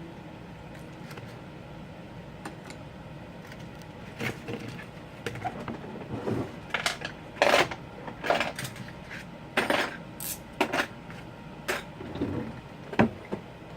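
Small tools and phone parts clinking and tapping on a hard workbench: a string of irregular clicks and clacks that starts a few seconds in.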